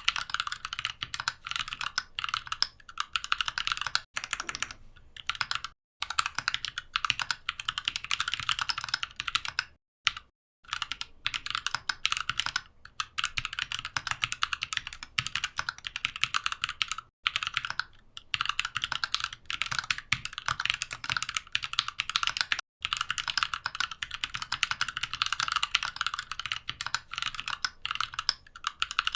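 Mechanical keyboard typed on fast and continuously, a dense run of key clicks broken by a few short pauses, the longest about ten seconds in.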